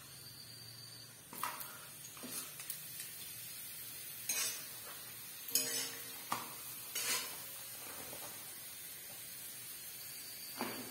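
Papad frying in hot oil in a metal kadai, a steady faint sizzle, with a metal spatula scraping and knocking against the pan about seven times as the papad is pressed and turned.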